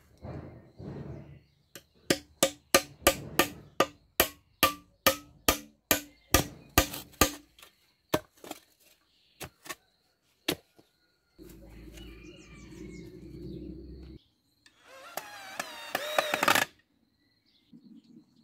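A hammer striking in quick, steady blows, about three a second, each with a brief ring, then a few scattered knocks. A low steady rumbling noise follows for about three seconds, and near the end comes a louder, wavering sound lasting under two seconds.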